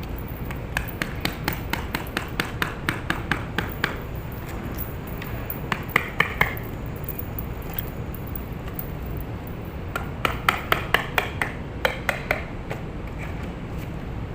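Hammer tapping on ceramic floor tiles to loosen and lift them: quick runs of light, ringing strikes, about five a second, with a few harder blows in between.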